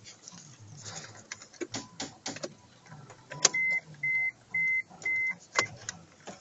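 Several sharp mechanical clicks, then about halfway through four short, high electronic beeps of the same pitch, about half a second apart, from a car's electronics, followed by another click.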